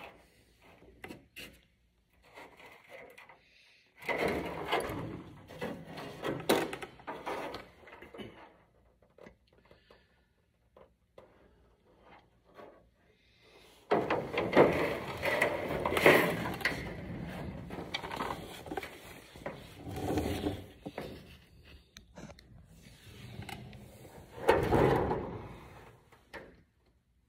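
Sheet-metal work on an aircraft's aluminium nose skin: three separate spells of scraping and clattering as the skin is worked loose from the fuselage, with short quiet gaps between them.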